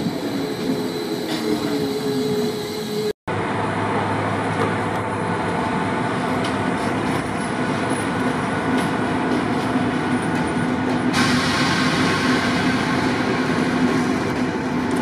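Stadler FLIRT electric multiple unit moving past with a falling motor whine, then a sudden cut to the steady rumble and low hum of a train rolling slowly through a station, with a brighter hiss of wheels on rails joining about 11 seconds in.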